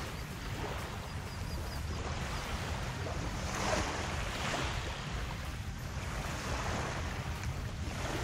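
Wind rumbling on the microphone over small waves lapping at the shoreline, with a brief louder rush of noise about three and a half seconds in.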